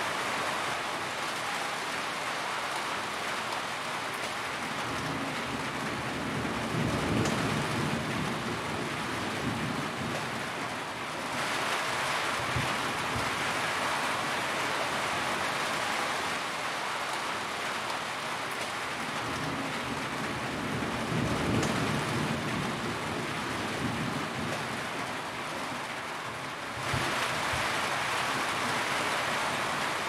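Steady rain drumming on a corrugated metal roof and dripping from its edge, with low rumbles of distant thunder now and then. The hiss turns brighter abruptly about a third of the way through and again near the end.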